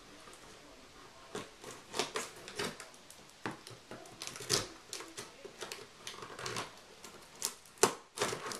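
Small scissors snipping and scraping through packing tape on a cardboard box: a string of irregular clicks and crinkles, with a couple of sharper cracks near the end.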